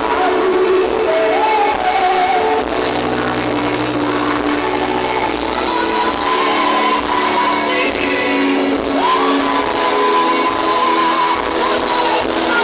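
Music with a voice singing long held notes that slide between pitches, over a steady sustained accompaniment.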